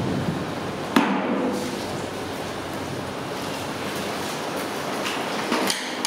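Rice tipped from a metal tray into a large metal cooking pot over a wood fire: one sharp metallic knock about a second in, then a steady noisy rustle with a few small ticks as the rice pours in near the end.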